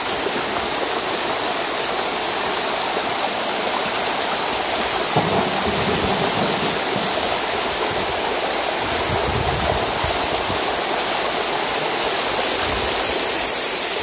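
Waterfall pouring down a tall mossy cliff, heard close at its foot as a steady, unbroken rush of falling and splashing water, with a couple of brief low rumbles about five and nine seconds in.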